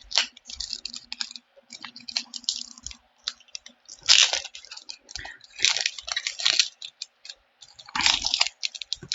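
Foil booster-pack wrapper crinkling and tearing open in several short bursts, with quieter rustles of handling in between.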